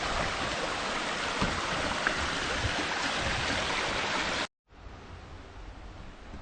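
Water of a small stream falling and rushing over stones, a steady rush. It cuts off suddenly about four and a half seconds in, and a fainter steady hiss follows.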